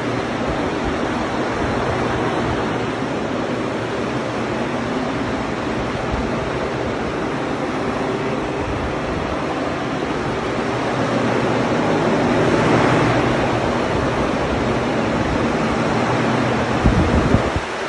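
Portable fans, a red axial air mover and blue centrifugal air movers, running steadily: a constant rush of air over a low hum, swelling about two-thirds of the way through. A few low bumps near the end.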